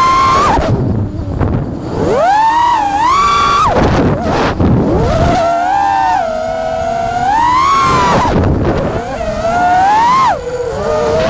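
FPV racing quadcopter's brushless motors whining, the pitch rising and falling with the throttle, dropping away and surging back several times.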